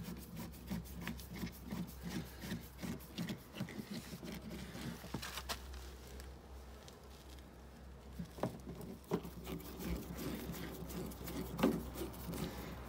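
Hand screwdriver turning screws into a car's plastic bumper cover: light rubbing and scraping with a run of small irregular clicks, and a few sharper clicks in the second half.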